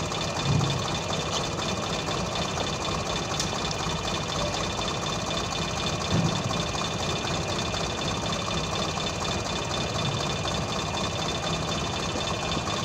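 Truck engine running steadily, with brief swells in loudness about half a second in and again about six seconds in.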